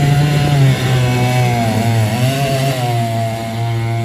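Stihl 088 chainsaw's two-stroke engine running at high revs, driving the 3D-printed propeller of a mini longtail boat. About halfway through, its pitch dips briefly, then comes back up.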